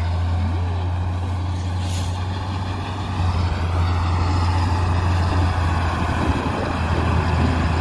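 An engine running steadily under load, a low hum that grows a little louder about three seconds in.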